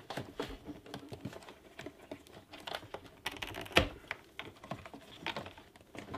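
Irregular small plastic clicks and taps as a BMW F30's rear door trim panel is handled and its puddle light is unclipped, with one sharper click just under four seconds in.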